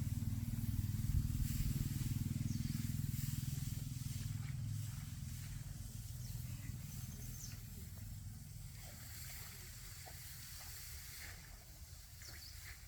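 A motor engine running with a low hum that grows gradually fainter.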